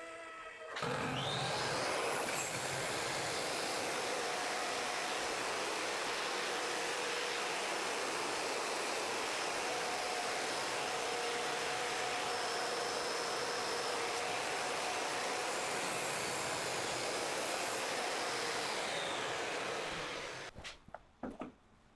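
Electric power tool motor spins up, runs steadily for about nineteen seconds, then winds down near the end.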